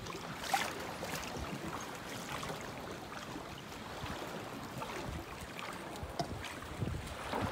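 Small waves lapping in shallow water, with a few light splashes and clicks, the sharpest about half a second in.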